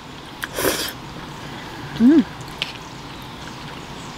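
A person slurping up a forkful of spaghetti noodles about half a second in, then a short hummed "mm" that rises and falls in pitch about two seconds in, the loudest sound, with chewing.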